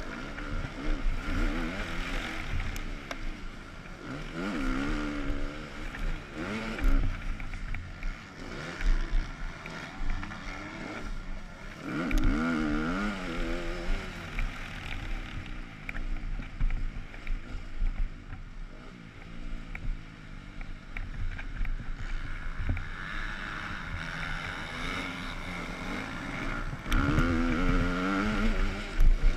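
Motocross bike engine heard from its own on-board camera, revving up and falling back again and again as the rider works through the gears, with wind and track rumble buffeting the microphone.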